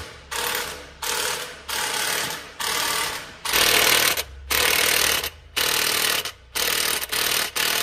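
Impact wrench running in about nine short bursts, rattling the wheel nuts loose on a tractor's front wheel.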